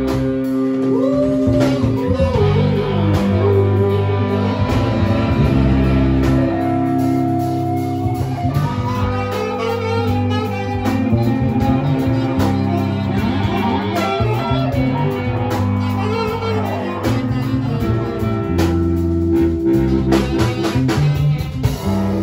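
Live band playing an instrumental blues jam: electric guitar over bass and drums, with trombone and saxophone, and bending lead notes at times.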